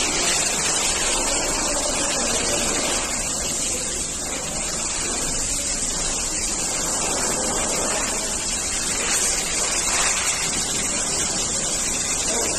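Steady rushing noise of factory machinery running, even and unbroken.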